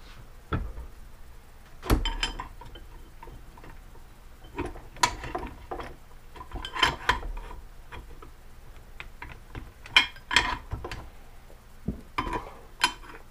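Metal tools and parts being handled against a bare aluminium motorcycle crankcase: scattered sharp clinks, taps and knocks, coming in several short clusters, as a crankshaft installer tool is set up on the joined case halves.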